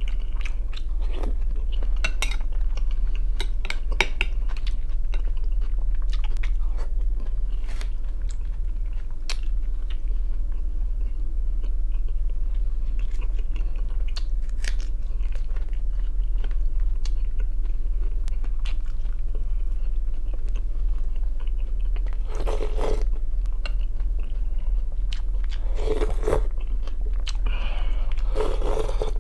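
Close-miked chewing and crunching of raw tomato and onion salad and soup, with many small wet clicks of the mouth. There are louder slurps from the spoon near the end, over a steady low hum.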